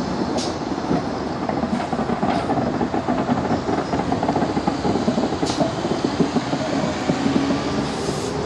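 Steam locomotive moving slowly tender-first along a platform, its wheels rumbling and clanking on the rails, with a few brief high-pitched noises cutting through.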